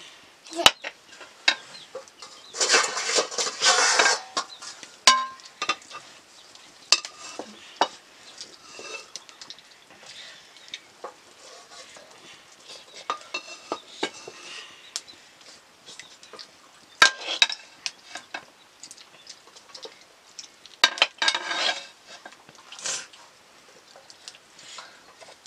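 A utensil stirring and scraping food in a cooking pot, with many scattered clinks and knocks of metal on metal and a few longer scraping strokes.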